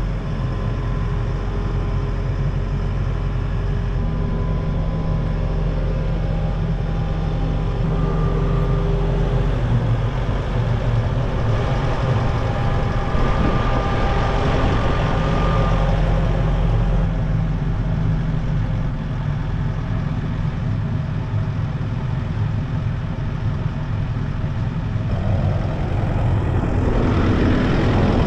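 A heavy machine's engine running steadily, its pitch shifting now and then as it works, with a louder rushing stretch about halfway through and the engine speeding up near the end.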